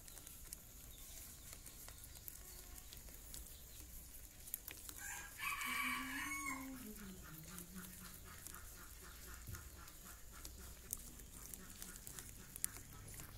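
Baby rabbits gnawing at a raw corn cob: faint, scattered nibbling clicks. About five seconds in, a loud drawn-out call lasting about a second and a half stands out over them.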